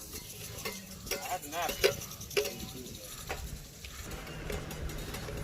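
Indistinct voices of people talking, with several sharp clicks over a low steady rumble.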